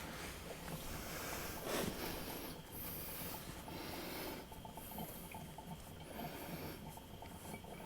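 Faint trickle of used hydraulic fluid draining from the front differential of a Kubota BX23S into a drain pan, with a brief louder patch about two seconds in.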